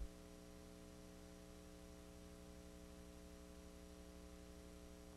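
Near silence: a faint, steady electrical hum left on the tape after the recording stops, with no other sound.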